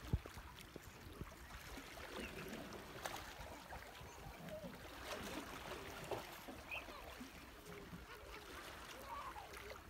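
Open-water ambience: water lapping and a steady wash of wind, with scattered faint clicks, one sharp click at the very start, and a few brief faint calls.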